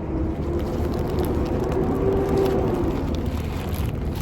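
Steady low rumble of a vehicle, with a faint whine that swells and fades around the middle.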